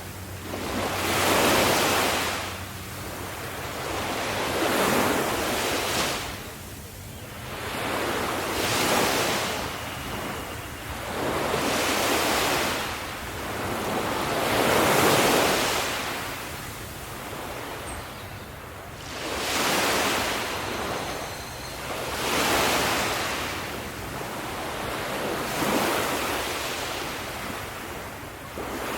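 Ocean waves breaking and washing onto a shore in a steady rhythm, one surge about every three to four seconds.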